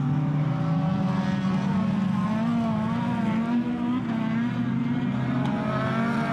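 Engines of several near-stock autocross cars running together as they race round the dirt track, their pitches wavering up and down as the drivers lift and accelerate through the turns.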